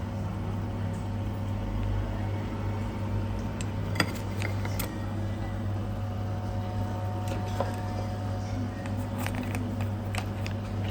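Steady low mechanical hum of a fan or ventilation unit, with a few sharp clicks of tableware, the loudest about four seconds in.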